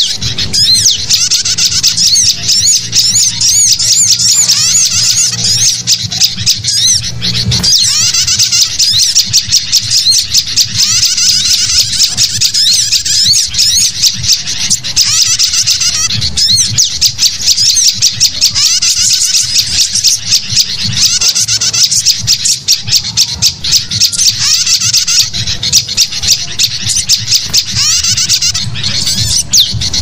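A dense, layered chorus of songbird calls from a bird-lure mix: sooty-headed bulbuls chattering noisily among sunbird and prinia calls, with rapid high chirps and trills throughout. A steady low hum lies underneath, strongest in the first eight seconds.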